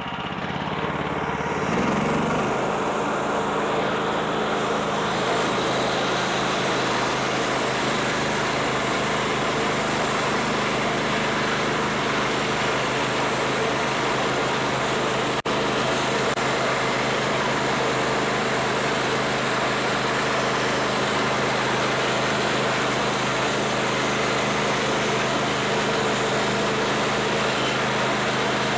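Homemade band sawmill sawing through a log: its engine runs steadily under load while the band blade cuts. The sound builds over the first couple of seconds as the cut gets under way.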